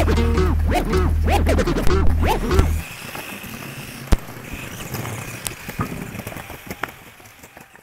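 Background music with a heavy bass beat that cuts off about three seconds in. After it, fainter, a Tamiya Grasshopper RC buggy runs on paving: a thin high whine from its 540 Sports Tuned electric motor over tyre noise, with a few sharp clicks, fading out near the end.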